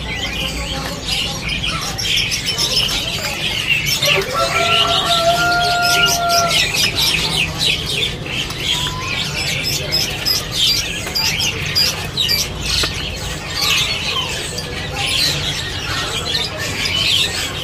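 Many caged songbirds chirping and twittering at once in a dense, unbroken chorus. About four seconds in, a steady whistle-like tone is held for about two seconds.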